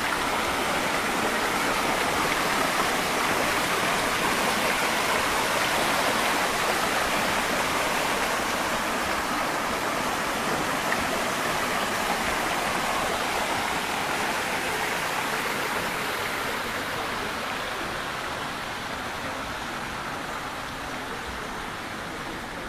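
Fountain water splashing as it cascades over the rim of a stone basin into the pool below, a steady rush that slowly fades toward the end.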